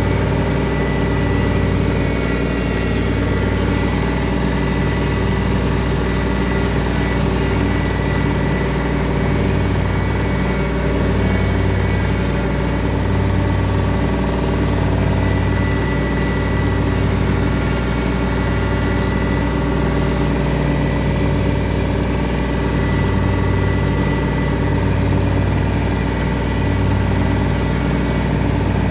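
Compact tractor's engine running steadily while mowing with its mower deck, with a steady high whine over the engine's hum, which wavers slowly.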